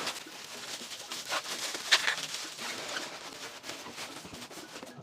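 Plastic packing material crinkling and rustling as a parcel is wrapped, with scattered light clicks and taps and a sharper tap about two seconds in.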